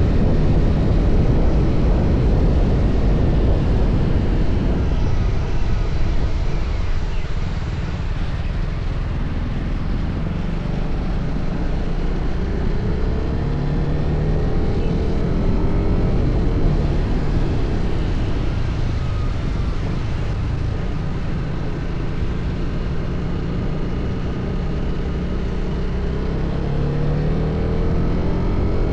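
TVS Apache RR310's single-cylinder engine through its stock exhaust, riding at speed, its pitch rising and falling with the throttle, over a steady rush of wind noise.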